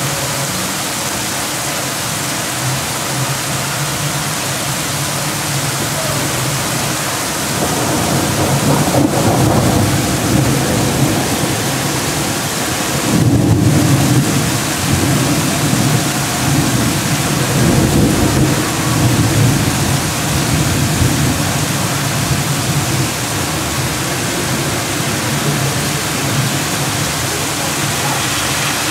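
Thunderstorm downpour: heavy rain pouring steadily, with a long low rumble of thunder that builds about a quarter of the way in, is loudest near the middle, and eases off after.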